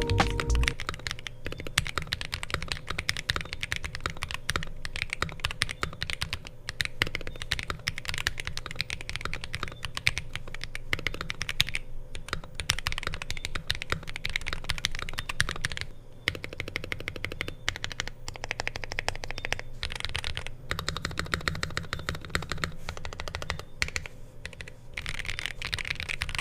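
Fast, continuous typing on a mechanical keyboard with Akko CS Matcha Green linear switches: a dense stream of keystroke clacks, easing briefly about 16 seconds in.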